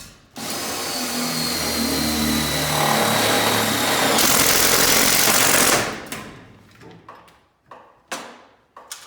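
Impact driver spinning a step drill bit through sheet steel, running hard and steadily for about five seconds. The cutting grows louder and harsher about four seconds in, then the tool winds down, followed by a few light knocks.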